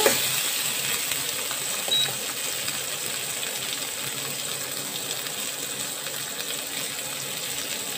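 Shallots, tomato and garlic sizzling in hot oil in a pot, a steady crackle, with a spoon clink against the pan at the start.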